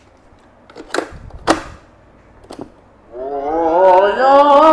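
Sony CF-S60 radio-cassette boombox: two sharp mechanical clacks from the cassette deck's door and keys, then about three seconds in a cassette starts playing through its speakers, music with a singing voice that rises quickly and runs on loud. It shows that the cassette mechanism still plays tape.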